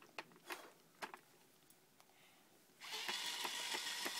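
A battery-powered toy drill switches on about three seconds in and whirs steadily with rapid clicking, driving a plastic bolt into a pegboard. Before that there are only a few light plastic taps.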